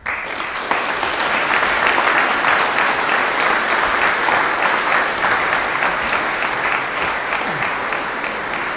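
Large audience applauding, breaking out suddenly and holding steady, easing slightly toward the end.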